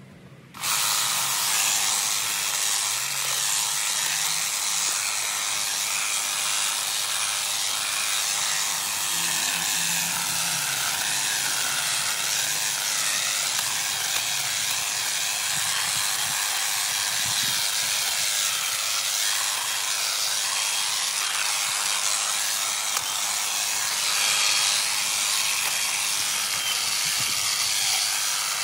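Honda HHH 36 AXB cordless battery hedge trimmer running and cutting into a dense hedge, a steady buzzing whine whose pitch wavers as the blades bite into the growth. It starts suddenly about half a second in.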